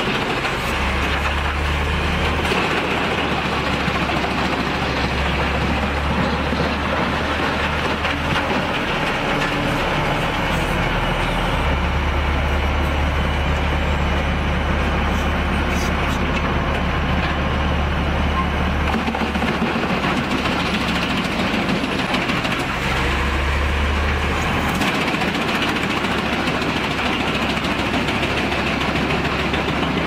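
Truck-mounted mobile drum wood chipper running under load as logs are fed into its toothed drum and chipped. The sound is a steady, dense mechanical grinding noise, under which a deep low hum drops in and out three times.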